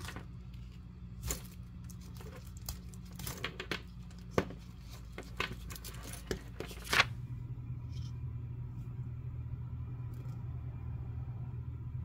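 Nitrile-gloved hands handling and flexing leather bag straps and handles with a sticky edge coat: irregular rustles, crackles and sharp clicks, the loudest about four and seven seconds in, with light metallic clicks from the gold clasps. After about seven seconds only a steady low hum remains.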